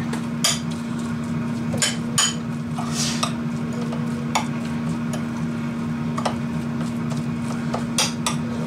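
A metal utensil stirring seasoned canned tuna in a small ceramic bowl, with about a dozen irregular clinks and scrapes against the bowl. Under it runs the steady low hum of an air fryer.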